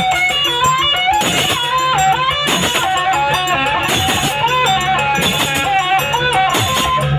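Live jaranan ensemble music: a bending, ornamented melody line over drum strokes and a low steady tone underneath.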